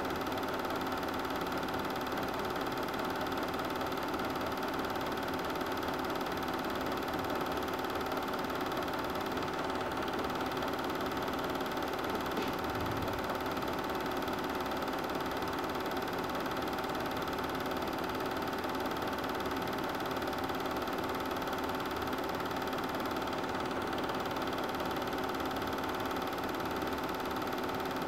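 Super 8 film projector running, a steady mechanical whir with a constant hum.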